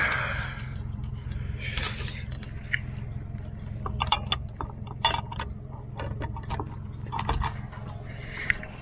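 Vehicle driving on a rough road: a steady low rumble with irregular clinks and rattles of loose gear throughout.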